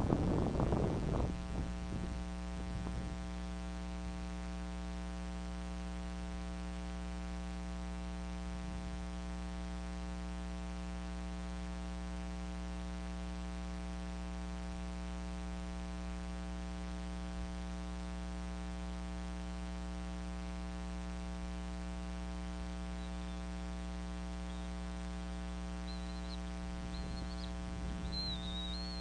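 Steady electrical hum from the nest camera's audio line. A noisy stretch comes in the first second or so, and faint high chirping bird calls come near the end.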